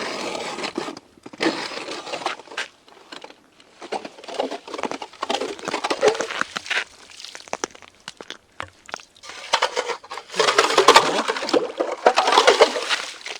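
Ice auger boring a hole through thin early-season lake ice: irregular crunching and scraping as the blades shave the ice, in uneven bursts with short pauses, loudest near the end.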